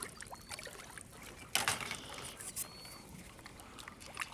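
Water splashing and sloshing against a boat as a large redfish is released over the side, with one louder splash about a second and a half in.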